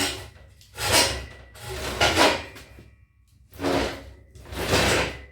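Five rough scraping sounds, each between half a second and a second long, as steel door-frame pieces are shifted and dragged across a work surface while being fitted and clamped.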